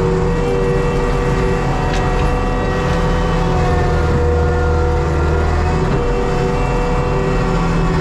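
ASV RT-120 compact track loader's diesel engine running steadily under load, heard from the cab, with a steady whine over a deep rumble that swells and eases every few seconds.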